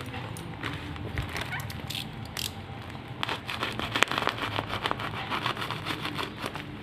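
Plastic mailer bag crinkling and crackling as hands handle and squeeze it, the crackles getting dense from about three seconds in. Steady rain hiss underneath.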